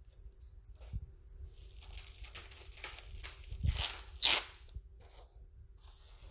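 Bubble-wrap sleeve crinkling and crackling as a hand handles it and peels a round sticker off it. The two loudest crackles come about four seconds in.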